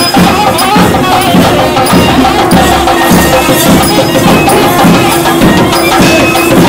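Traditional South Indian temple procession music, played loud: a melody wavers over a held drone tone, with drum strokes and small cymbal clicks keeping the rhythm.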